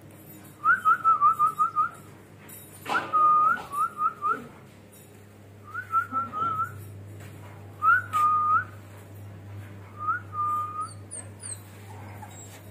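A person whistling five quick bursts of short, rising notes at one steady pitch, a few notes to each burst. A brief sharp noise comes about three seconds in.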